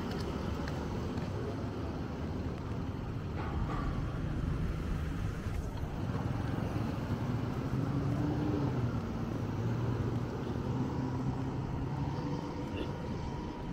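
Road traffic: motor vehicle engines running and passing as a steady low rumble, a little louder about eight seconds in as a vehicle goes by.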